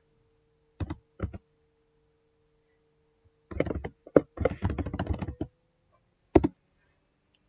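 Computer keyboard being typed on: two single keystrokes about a second in, then a quick run of keys lasting about two seconds, and one last louder click near the end.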